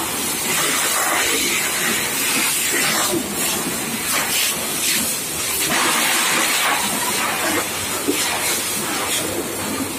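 Strong water jet from a deck-wash hose hissing steadily as it blasts against a ship's steel deck and railing, with uneven surges of splashing.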